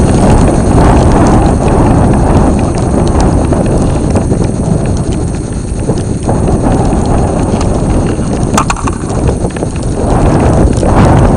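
Loud rumbling water and handling noise on an underwater camera's microphone, with scattered knocks and one sharp click about eight and a half seconds in.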